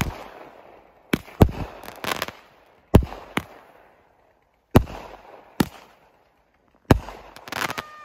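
Consumer aerial fireworks going off: sharp bangs about once a second, some in quick clusters, each followed by a crackling tail.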